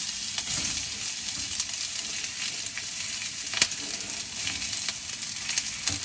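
Sliced onions sizzling in hot avocado oil in a stainless steel skillet, just added to the pan: a steady frying hiss with scattered small pops and a sharper tick about three and a half seconds in.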